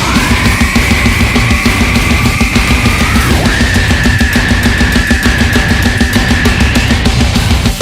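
Loud heavy-metal music with driving drums, and a long held high note that bends near the start and again about three seconds in.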